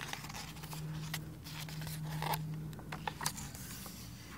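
Paper pages of a hardcover picture book being turned and handled: a series of short rustles and soft scrapes. A low steady hum runs under the first three seconds.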